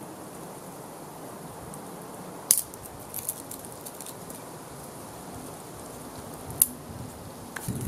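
Small dry twigs snapping as they are broken by hand: two sharp snaps about four seconds apart, with a few fainter clicks. Behind them is a steady, faint outdoor hiss.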